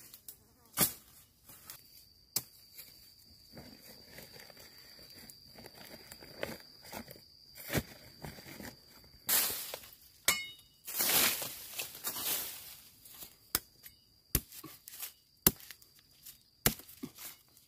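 Footsteps and rustling through dry bamboo leaf litter, with scattered sharp snaps and cracks of dry bamboo and two longer bouts of crunching rustle about halfway through. A faint, steady, high insect drone runs under the first half.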